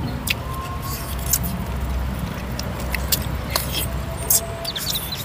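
Close-up eating sounds from people chewing grilled chicken with their hands: wet chewing and lip-smacking with scattered sharp little clicks, over a steady low background rumble.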